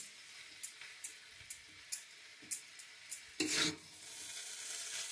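Spatula stirring and tossing chow mein noodles in a hot frying pan: sharp taps of the utensil against the pan about twice a second, a longer scrape about three and a half seconds in, then a steady sizzle of frying.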